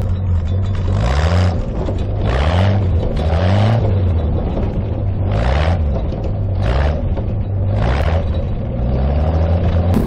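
Engine of a 1968 Bombardier tracked snow plow running under load and revved up and eased off over and over, six or seven quick rises in pitch, each with a short rush of noise.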